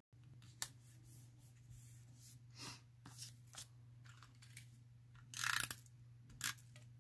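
Faint paper and cardstock handling, with soft taps and rustles as pieces are moved on a craft mat. About five and a half seconds in, a tape runner is drawn across a small piece of cardstock in a short swipe, followed by a single click. A faint steady hum runs underneath.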